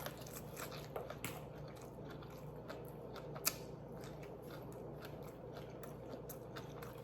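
A person chewing crunchy battered vegan fish close to the microphone. There are many small crunches and mouth clicks, and one sharper crunch about three and a half seconds in.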